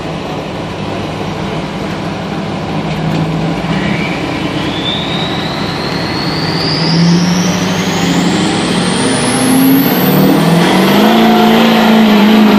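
Diesel GMC Sierra pickup pulling a weight-transfer sled. The engine works under heavy load, growing louder and slowly rising in pitch, while a high whine climbs steadily over several seconds.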